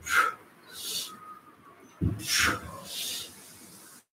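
A man breathing hard through a core exercise: a forceful exhale followed by a sharp hissing inhale, twice, the second exhale about two seconds in with a dull thump.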